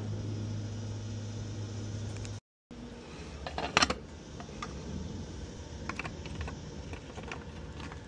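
Plastic clicks and rattles from an AC electrical disconnect box being handled: a cluster of sharp clicks about four seconds in as its cover is flipped open, then scattered lighter clicks. Before that a steady low hum, broken off by a brief dropout.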